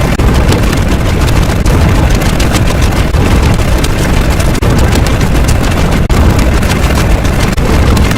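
Loud, dense, heavily distorted booming noise with strong bass and frequent crackles, going on steadily.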